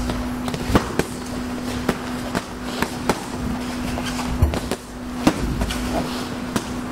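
Boxing gloves landing in sparring: irregular sharp slaps of punches on guards and body, a dozen or so, over a steady low hum.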